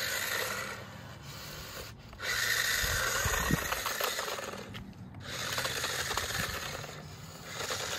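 Nonorytloo kids' RC toy motorcycle driving, its small electric motor and plastic wheels whirring and grinding over concrete. The sound swells and fades in stretches, with brief drops about two and five seconds in.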